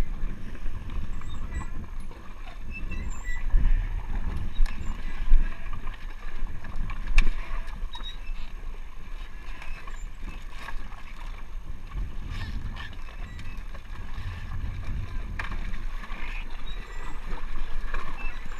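Knocks, clicks and plastic rustling as gear and a plastic bag are handled in the open front storage compartment of a Yamaha jet ski, over an uneven low rumble.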